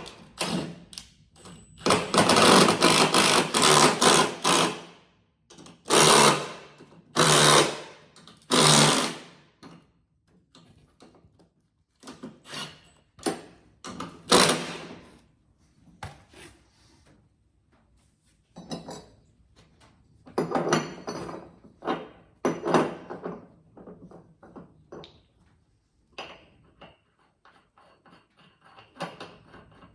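Tool work on a lawn mower deck: a long burst of rapid mechanical rattling about two seconds in, three shorter bursts after it, then scattered clicks and clanks of metal parts.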